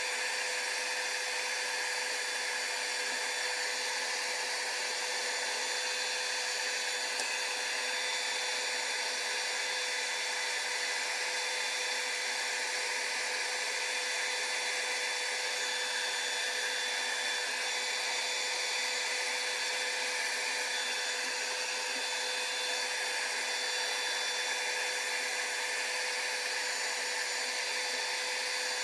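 Electric hot-air blower running steadily: a constant fan whir and hiss with a steady hum, heating the phone to soften the adhesive under the screen glass.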